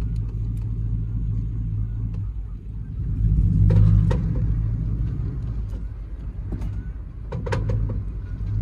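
Pickup truck driving slowly across a grass field, heard from inside the cab with the window open: a steady low engine rumble that swells about three to four seconds in and again near the end, with a few short knocks and rattles from the body.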